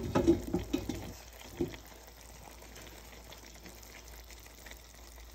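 Pot of beef tehari, rice cooking in meat broth, simmering with a soft steady bubbling. Several clicks and knocks come in the first second, and one more about a second and a half in.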